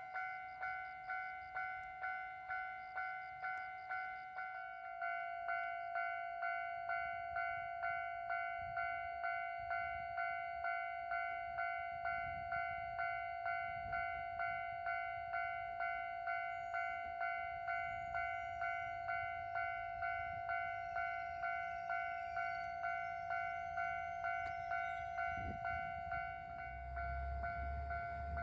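Japanese railway level-crossing warning bell ringing its 'kan-kan' alarm, a steady ringing tone struck about twice a second. A train rumbles in underneath, growing louder near the end.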